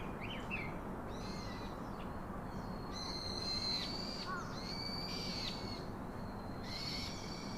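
Nature ambience: a steady background hiss with birds calling, several high whistled calls of under a second each, coming every second or so.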